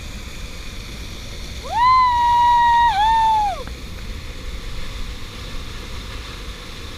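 Steady rush of a waterfall, with a person's long, high-pitched whooping cheer held for about two seconds, starting near two seconds in, with a brief dip in the middle.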